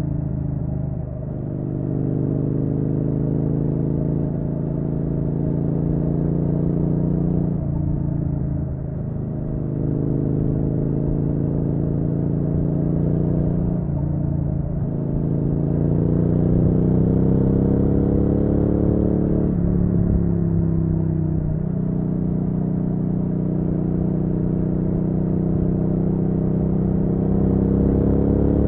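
Triumph Street Twin's 900 cc parallel-twin engine pulling along the road on a ride, its pitch climbing slowly and dipping briefly about six times before rising again, as the throttle and gears change.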